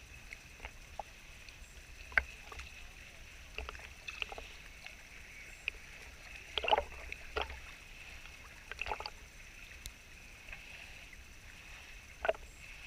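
Quiet water sounds at the side of a small boat, with a scattering of short splashes and knocks, the sharpest about two seconds in and others near the middle and near the end.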